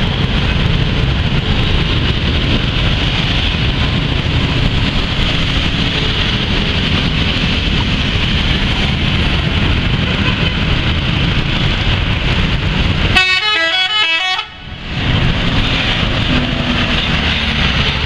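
Steady bus and road noise, broken about 13 seconds in by a multi-tone telolet bus horn playing a quick stepping melody of short notes, which cuts off suddenly after about a second and a half.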